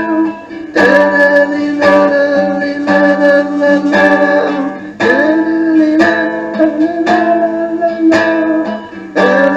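A song with strummed and plucked guitar and a singing voice, with sustained notes that slide up into pitch several times.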